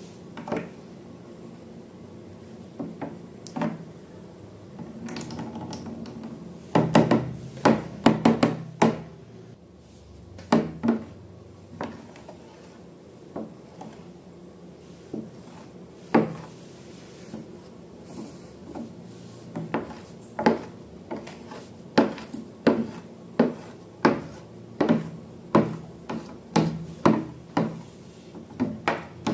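A series of sharp taps and knocks on hard objects: a dense cluster about seven to nine seconds in, and a run of about one to two knocks a second near the end.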